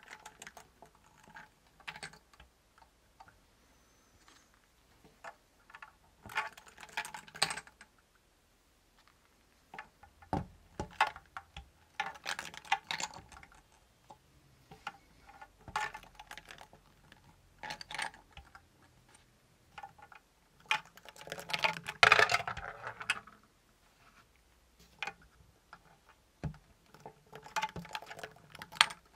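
Balls being played on a tin tabletop game of skill, clattering against the metal rim and dropping into brass cups: bursts of clicks and rattles every few seconds, the longest and loudest about two thirds of the way through.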